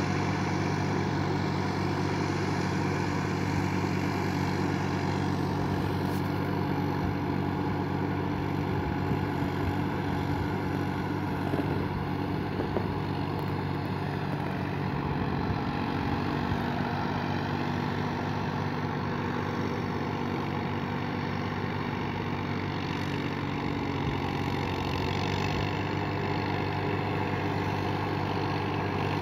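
Massey Ferguson 1035 DI tractor's three-cylinder diesel engine running steadily as it works a flooded paddy field on cage wheels, with a slight shift in engine note about halfway through.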